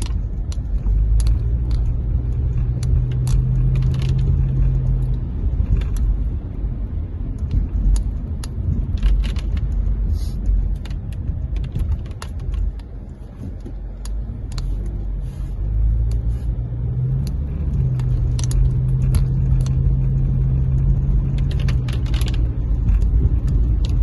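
A car driving, with a steady low rumble of engine and road noise and a droning hum that comes and goes twice. Scattered sharp clicks and ticks sound throughout.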